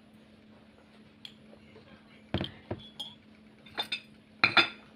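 Ceramic mug, bowl and metal spoon clinking and knocking against a china plate on a table: a run of about six sharp clinks in the second half, loudest near the end.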